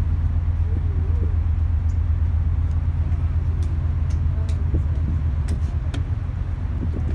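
Car ferry's engines running with a steady low drone, with faint passenger voices now and then.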